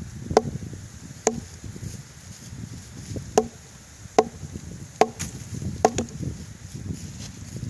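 Tomahawk chopping into wood: six sharp blows at an uneven pace of about one a second.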